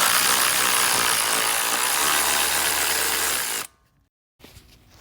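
Power tool running steadily for nearly four seconds, loosening a brake caliper bracket bolt, then stopping suddenly.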